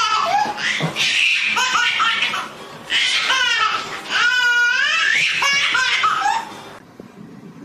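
A baby laughing in repeated high-pitched bursts, which stop about six and a half seconds in.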